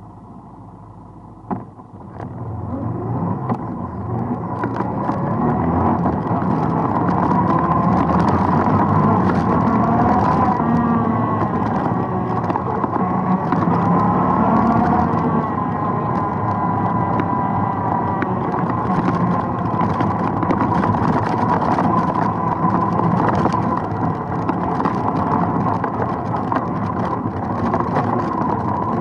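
ATV engine, quiet at first, then a sharp click about a second and a half in, after which it picks up and runs steadily under load as the machine rides along a dirt forest trail, its pitch rising and falling a little midway.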